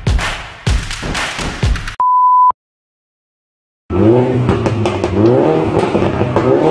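Intro music with a heavy beat, cut off by a half-second electronic beep, then silence. About four seconds in, a car engine starts revving hard in repeated rising sweeps.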